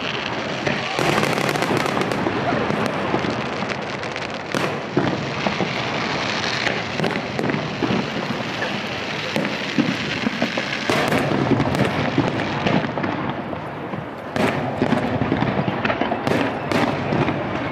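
Aerial fireworks bursting in rapid succession, a dense run of booms and crackles with no let-up.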